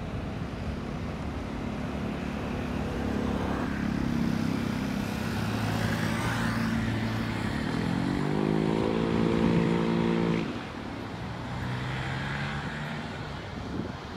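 An engine running with a steady low hum. About eight seconds in, its pitch climbs and it grows louder, then it cuts off sharply a couple of seconds later, leaving a fainter hum.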